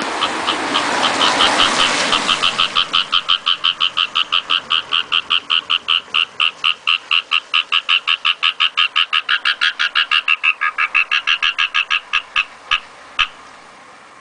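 An animal calling loudly and shrilly in a rapid, even run of short calls, about five a second. The run breaks off about twelve seconds in, and one or two single calls follow. The uploader asks whether it could be a masked palm civet.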